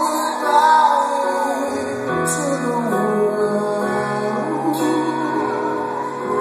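Live rock band with acoustic guitar playing the close of a song, with sustained chords and a voice singing drawn-out notes, heard from the audience in a concert hall.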